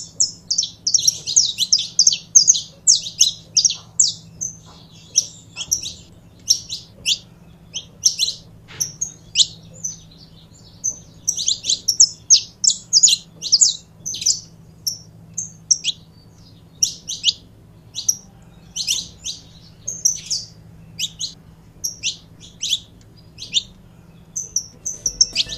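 Saffron finch (canário-da-terra) singing: a long, lively run of quick, sharp high chirps and short trills, delivered in bursts with brief pauses between phrases.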